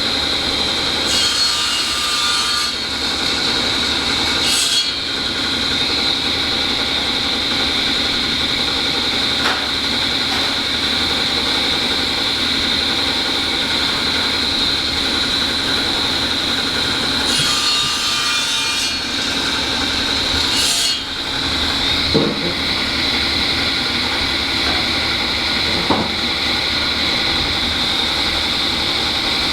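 Metalworking shop machinery running steadily with a high whine, with two spells of added hissing noise and a couple of sharp metallic clicks later on.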